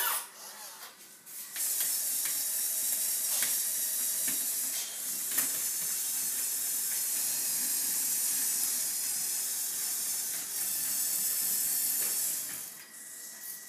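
Hydraulic system of a radio-controlled MAGOM HRC MG 1.6 model hydraulic excavator running with a steady high hiss as the boom, arm and bucket are worked. It starts about a second and a half in and stops near the end.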